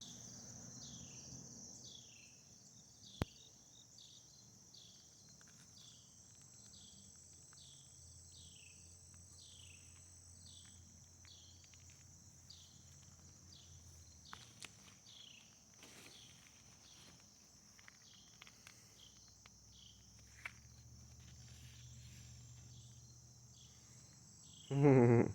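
Steady high-pitched chorus of crickets or similar insects outdoors, with a short falling chirp repeated a bit more than once a second. A brief loud low-pitched sound comes near the end.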